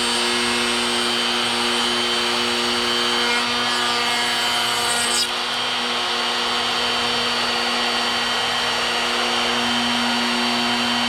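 Electric wood router running steadily with a high, even whine while cutting hinge recesses into the wood. The sound changes slightly about five seconds in.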